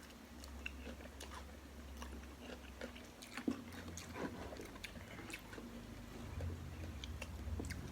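Close-miked chewing of soft rice vermicelli noodles, with scattered faint wet mouth clicks and smacks.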